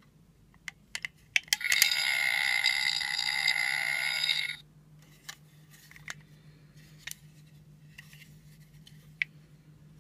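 Electronic gross-noise sound effect from The Ugglys Pet Shop toy's small speaker, a buzzy noise lasting about three seconds. Sharp plastic clicks and taps come before it and scattered after it as the toy pieces are handled.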